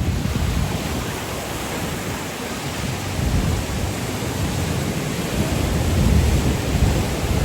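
Caribbean surf breaking and washing up on a sandy beach: a continuous hiss of water with a low rumble that swells about six seconds in.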